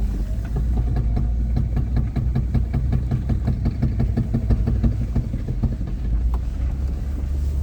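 Car's drivetrain making a rapid, even clicking, about six clicks a second, over a steady low rumble while driving. The clicks thin out near the end. The owner suspects the differential spider gears, since the CV joints checked fine and the passenger-side hub bearing is new.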